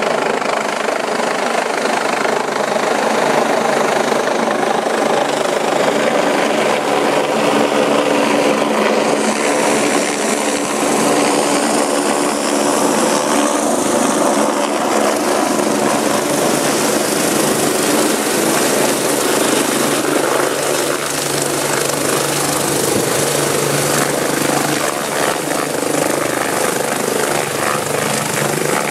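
Medical helicopter descending and landing close by: loud, steady rotor and engine noise, with a sweeping hiss in the upper range between about nine and fourteen seconds in as it comes down overhead.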